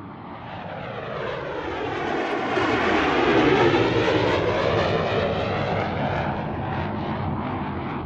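An airplane flying over, its engine noise swelling to a peak about halfway through and then slowly fading.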